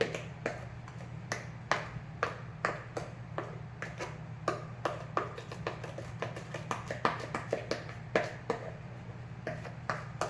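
A spoon repeatedly tapping and scraping against a bowl while getting brownie batter out, a quick irregular run of clicks, about two or three a second, over a steady low hum.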